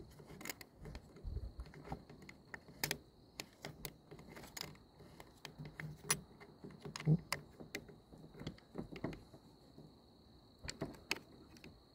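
Allen key turning a grip bolt into a micro Draco pistol's steel receiver: irregular small metallic clicks and ticks as the key is worked and repositioned, with handling noise from the gun.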